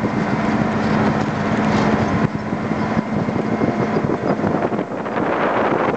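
Truck driving along, a steady engine hum under continuous road and tyre noise, with wind buffeting the microphone.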